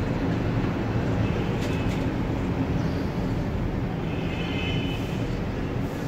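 Steady low outdoor rumble, like wind on the microphone or distant traffic, with a brief faint high tone about four seconds in.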